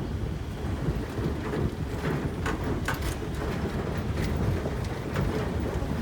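Vehicle driving on a rough forest road: a steady low rumble with scattered sharp knocks and rattles.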